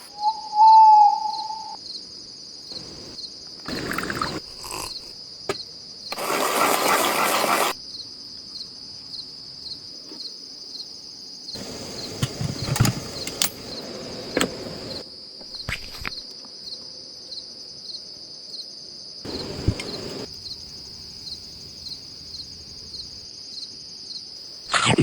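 A steady chorus of insects, a high trill pulsing evenly throughout. A short, loud tone sounds about half a second in, and scattered rustling and knocking noises come and go.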